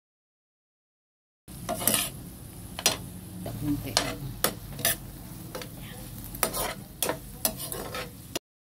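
Metal spatula scraping and clinking against a white-coated frying pan as it stirs sautéing clams with onion and bay leaves, over a low sizzle. It starts about a second and a half in, with irregular sharp clinks, and stops just before the end.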